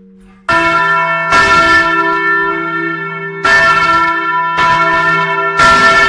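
Church bells rung close up in the bell tower: after a faint lingering hum, loud clapper strikes begin suddenly about half a second in and come roughly once a second, five in all, with a pause of about two seconds after the second, each strike ringing on in a long, many-toned hum.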